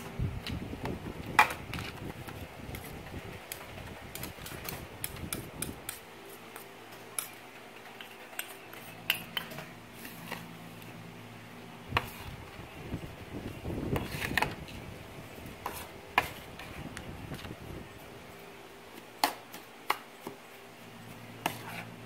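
Metal spoon stirring and scraping a dry, crumbly corn-flour and butter polvoron mix in a bowl, with irregular sharp clinks as the spoon strikes the bowl.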